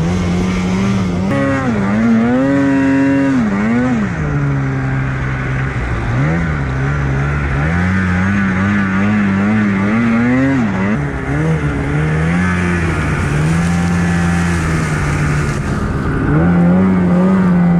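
Snowmobile engine running hard through deep powder snow, revving up and down as the throttle is worked, its pitch rising and falling over and over.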